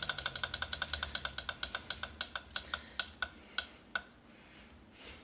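Wahoo KICKR Snap wheel-on bike trainer clicking in a steady rhythm as it spins down. The clicks start at several a second, slow and spread out, and stop about four seconds in. This is the fault noise that started after about a week of use.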